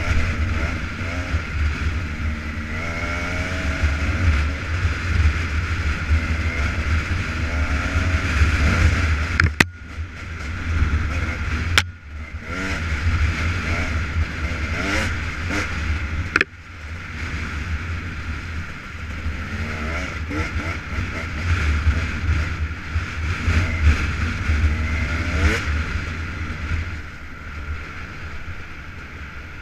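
KTM 300 EXC two-stroke enduro motorcycle engine revving up and down while riding, its pitch rising and falling repeatedly, with heavy wind rumble on the helmet-camera microphone. Sharp cracks about ten, twelve and sixteen seconds in, each followed by a brief drop in level.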